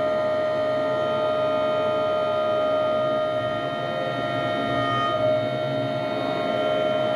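MacGregor ship deck crane's electro-hydraulic drive running under load with a steady, high whine, heard from inside the operator's cab while the control lever is worked.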